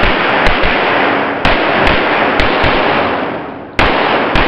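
Pistol shots on an indoor range, about ten in irregular strings and quick pairs. Each shot is followed by a long echo that barely dies away before the next one.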